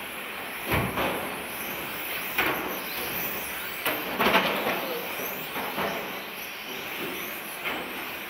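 A pack of 1/10 electric touring cars with 17.5-turn brushless motors racing just after the start: a high whine of motors and tyres, swelling several times as cars pass close, loudest about four seconds in.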